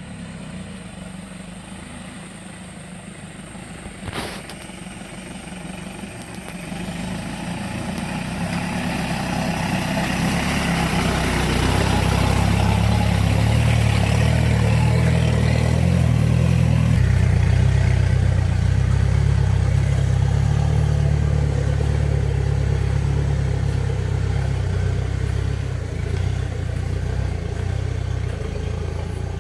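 Mahindra jeep engine running under load as it climbs a muddy road, swelling louder over the first dozen seconds, then easing off slightly near the end. A single sharp click about four seconds in.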